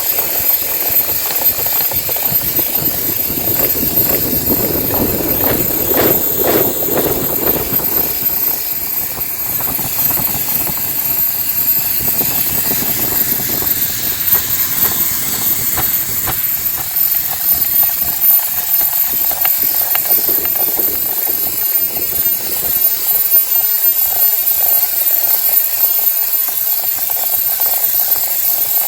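Hair dryer running steadily: a continuous rush of blown air with a thin, high-pitched whine over it.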